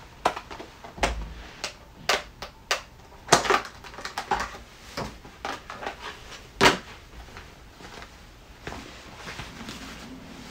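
Plastic packaging and parts of a sixth-scale action figure being handled by hand: irregular sharp clicks and taps with short bursts of rustling. The handling is busiest in the first seven seconds, with the loudest click about two-thirds of the way through, and only faint rustling near the end.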